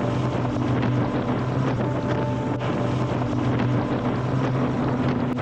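Motorcycle engine droning steadily at highway cruising speed, with wind rushing over the microphone.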